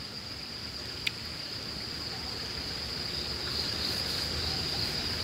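Crickets trilling steadily at a high, even pitch, with one sharp click about a second in.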